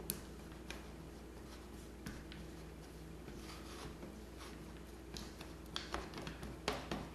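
Silicone spatula stirring and scraping melting dark chocolate in a nonstick saucepan: faint scrapes with light taps against the pan, coming more often near the end.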